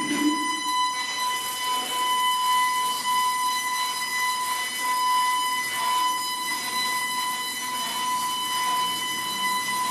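Electroacoustic sound installation giving out a steady high tone with a stack of overtones, held over a hiss, with a brief low swell at the very start.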